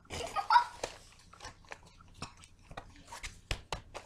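Paper pages of a ring binder rustling and being turned and handled, with a string of short crinkles and several sharp clicks and knocks.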